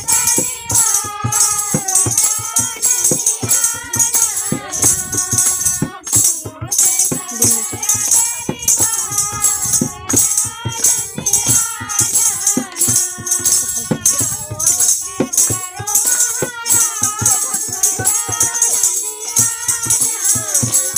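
Women singing a devotional kirtan bhajan together, accompanied by a dholak drum, hand-clapping and a jingling rattle keeping a steady beat.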